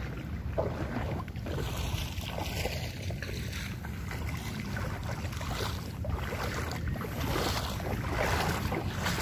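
Wind buffeting the microphone in a steady low rumble, with splashing footsteps wading through shallow floodwater.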